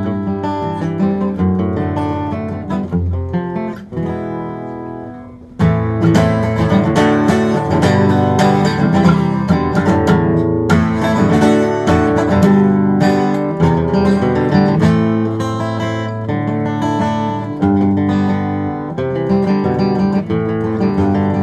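Gibson SJ-200 jumbo acoustic guitar with old 12–54 gauge strings, played solo: softer picked notes that fade away, then about five and a half seconds in a louder, fuller passage of strumming and picking.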